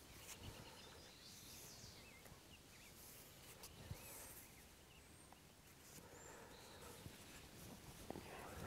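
Near silence: faint outdoor ambience with a few brief, distant bird chirps and a few soft clicks.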